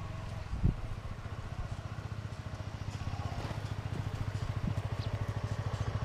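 Honda CBR150R's single-cylinder four-stroke engine running at low revs with a steady, even putter as the motorcycle rolls slowly toward the camera, growing gradually louder as it nears.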